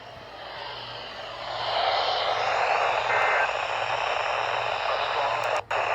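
Weather radio receiver hissing with static over a steady low hum, the hiss swelling about a second or two in and cutting out for an instant near the end.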